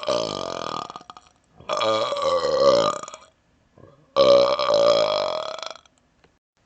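A man burping: the tail end of one burp at the start, then two long burps of about a second and a half each, a second apart.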